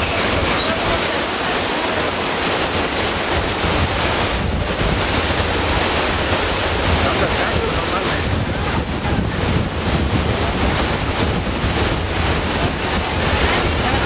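Steady rush of a large waterfall, water plunging into a river, with wind noise on the microphone.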